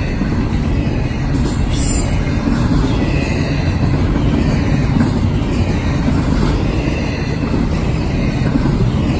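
Double-stack intermodal container cars rolling past at close range: a steady, loud rumble of steel wheels on the rails.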